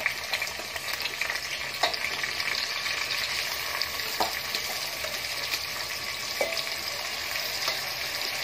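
Soaked rice sizzling steadily in hot oil in an aluminium pot, just after being poured in, with a few metal clinks against the pot.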